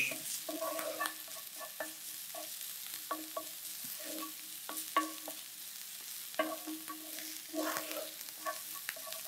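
A wooden spoon stirs chopped onion and garlic sautéing in olive oil in a frying pan. Its scrapes and knocks against the pan come irregularly, several a second, over a faint sizzle.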